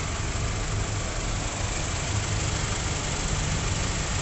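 Honda Mobilio's engine idling: a steady low hum that does not change.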